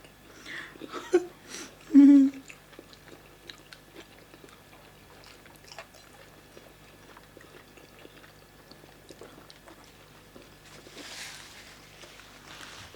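People eating pounded yam and vegetable soup with their hands: chewing and small mouth and hand sounds, with a brief vocal sound about two seconds in and a soft breathy noise near the end.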